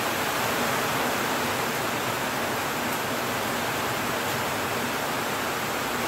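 Heavy rain falling steadily on leaves and a corrugated metal roof: an even, dense hiss that neither rises nor falls.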